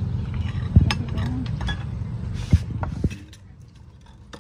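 Chopsticks, spoons and ceramic bowls and plates clinking and knocking during a meal, a few sharp clicks. Under them runs a steady low engine hum that cuts off a little after three seconds in.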